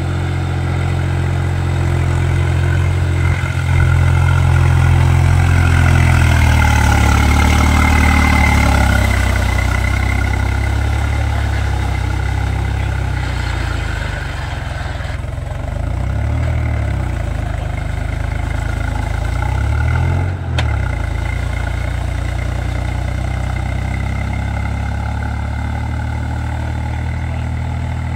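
Swaraj 735 FE tractor's three-cylinder diesel engine running steadily under load while its cage wheels churn through a flooded paddy field. It swells louder for a few seconds about five seconds in, its pitch dips briefly twice later as the engine labours, and there is one sharp click about twenty seconds in.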